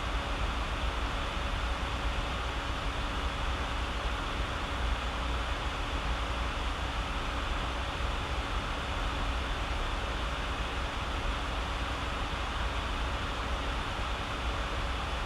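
Steady background hum and hiss with a low rumble and a faint steady tone, unchanging throughout.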